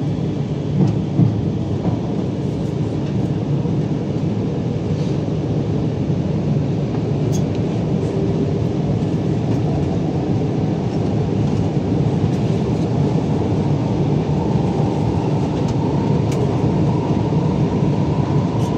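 Alstom Movia R151 metro train heard from inside the carriage as it pulls away and runs along the line: a steady rumble of wheels on rail with a few light clicks. In the second half a faint motor whine climbs slowly in pitch as the train picks up speed.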